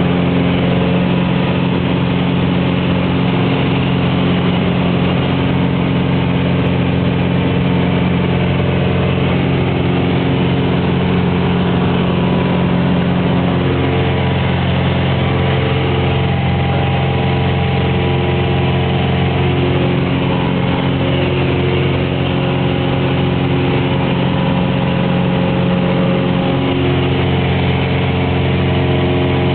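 Single-engine Cessna's piston engine and propeller, heard from inside the cockpit as a steady, unbroken drone in flight.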